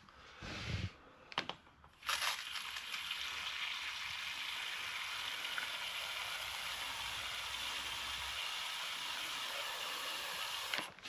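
Hand-pump sprayer's nozzle hissing as a steady jet of water is sprayed onto the windshield-corner seal, a water test for a leak. A few short spurts come in the first two seconds, then a continuous hiss starts about two seconds in and stops just before the end.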